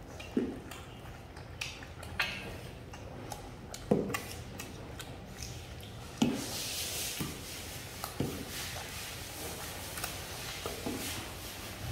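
Irregular dull knocks and light clicks, about six knocks spread over several seconds.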